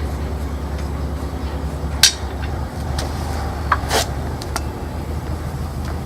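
Sharp metallic clinks of tools and wheel nuts as a car wheel is taken off: one about two seconds in and a pair around four seconds, over a steady low hum.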